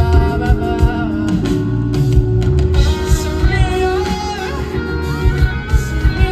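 Live pop concert music, heard through a phone's microphone in an arena: a band with steady drum beats, bass and guitar, with singing over it.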